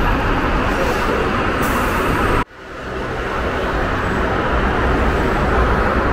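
Steady city street traffic noise. About two and a half seconds in, the sound cuts off abruptly and then fades back up to the same traffic noise.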